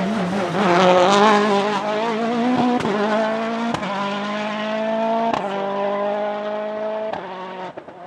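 Citroën DS3 WRC's 1.6-litre turbocharged four-cylinder engine at full throttle, its pitch climbing through the gears with a sharp crack at each upshift, then fading near the end as the car pulls away.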